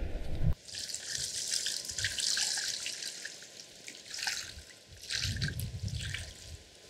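Water poured over a mirror carp lying on a wet unhooking mat, splashing and trickling off its body in bursts, with a few soft low thumps in the second half.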